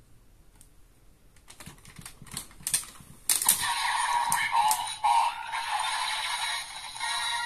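Plastic clicking and ratcheting as the DX Desire Driver toy belt is turned around, followed about three seconds in by a loud burst of electronic sound effects from the belt's speaker that runs for about four seconds and then cuts off.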